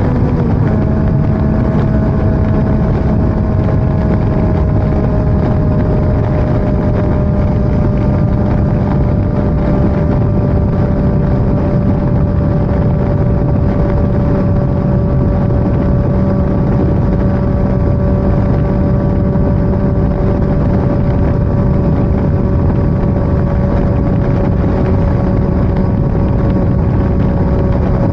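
A vehicle's engine running steadily under way, with heavy wind noise on the microphone. The engine note shifts about half a second in, then holds, sinking slightly in pitch.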